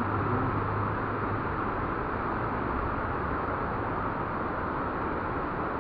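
Sai Yok Noi waterfall: falling water making a steady rushing noise.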